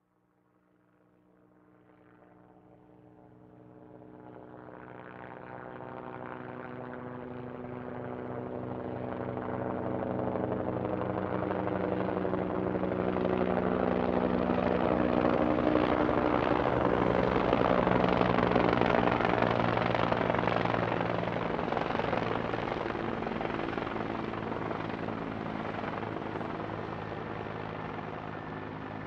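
Helicopter flying past: its rotor and engine sound builds from nothing, is loudest a little past the middle, then slowly fades as it moves away.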